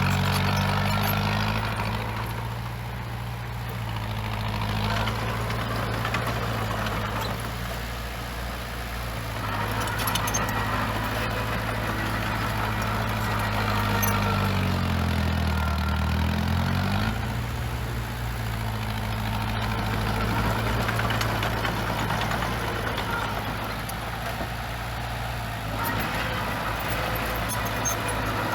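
Diesel engine of heavy earthmoving equipment running steadily, its pitch dropping and then climbing back once about halfway through. A rougher noise over it grows and fades.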